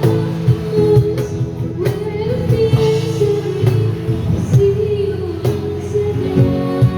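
Live busking band playing a pop song: a voice singing over strummed guitar and a drum kit keeping a regular beat.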